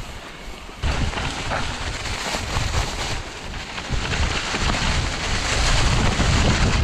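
Wind rushing over the microphone of a mountain bike riding downhill over rough ground, with tyres and bike knocking over bumps. It jumps up suddenly about a second in and grows louder toward the end.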